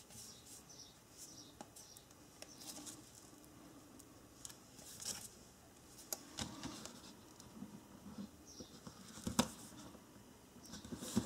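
Faint rustling and small clicks from hands handling cardstock and unrolling double-sided adhesive tape along the edge of a card.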